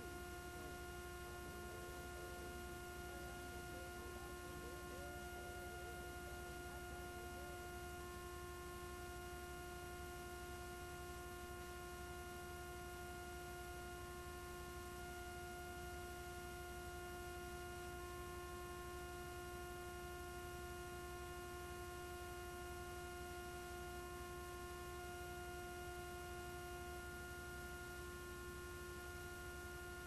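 Faint steady electrical hum: several fixed tones held unchanged over a low even hiss, with no programme sound.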